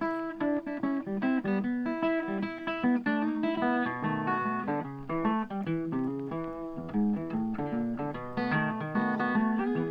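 Background music of plucked acoustic guitar, with notes picked in quick succession.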